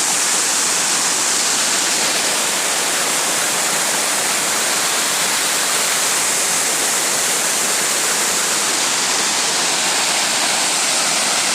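Spread Eagle Falls, a large waterfall, pouring with a loud, steady rush of falling water.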